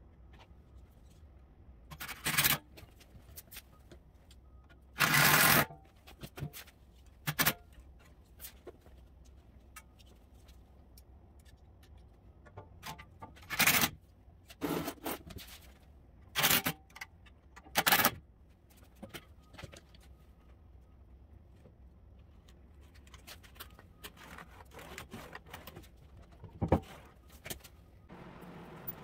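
Scattered short knocks and scrapes of parts and tools being handled during an arbor press rebuild, about eight in all, the longest lasting about half a second, over a low steady hum.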